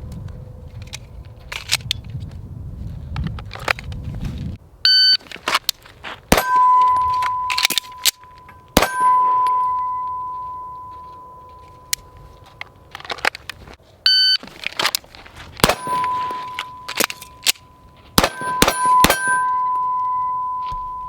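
Two strings of pistol fire from a Staccato C2, a 9mm pistol, each started by the beep of an electronic shot timer. Steel targets ring with a long fading ring after the hits.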